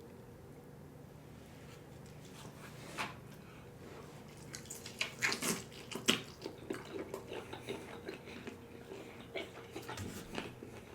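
Close-miked eating sounds of gravy-dipped KFC fried chicken: irregular crunching of the crispy breading and wet chewing, starting about four seconds in after a quiet stretch.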